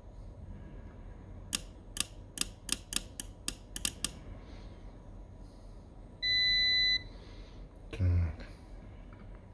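A power relay on a welding inverter's board clicking about ten times in quick succession as its coil is switched on and off by touching a supply wire to it. About two seconds later a multimeter gives one continuity beep lasting under a second, followed by a short low thump.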